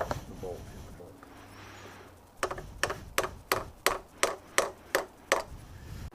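A run of about nine sharp taps, roughly three a second, after a quiet start: hard parts being tapped, as a tool taps a phone mount's stem and stopper-nut assembly into place.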